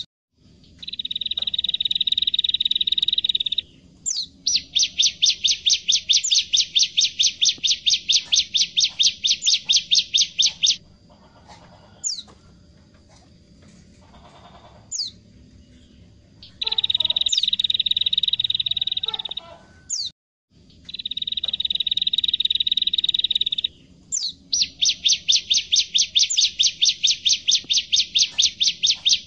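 Bar-winged prinia (ciblek) singing loud: long buzzy trills of a few seconds each alternate with fast runs of sharp repeated notes, about six or seven a second. Thin high squeaks come between phrases, and the song pauses for a few seconds in the middle.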